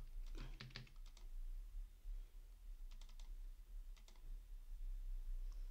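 Faint clicks of computer keys and a mouse: a quick run of clicks about half a second in, then a few more around three and four seconds in.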